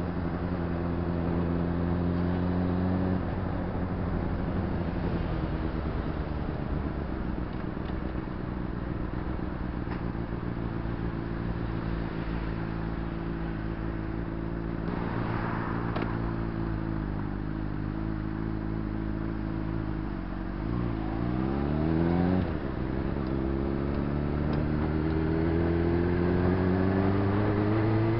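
Honda CBR600RR's inline-four engine running at low, steady revs in slow traffic, with road and traffic noise around it. A little after twenty seconds in, the revs dip and come back briefly, then climb steadily as the bike accelerates.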